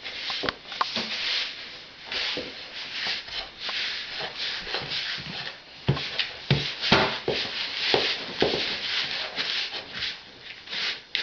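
Anzac biscuit dough of oats, flour and melted butter being stirred in a bowl: continual irregular scraping with frequent short knocks of the utensil against the bowl.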